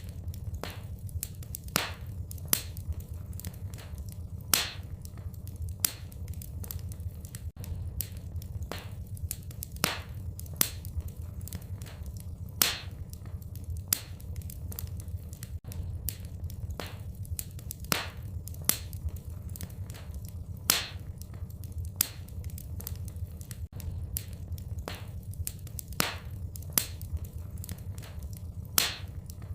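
Wood fire in a fireplace crackling, with irregular sharp pops and snaps over a steady low rumble of flame.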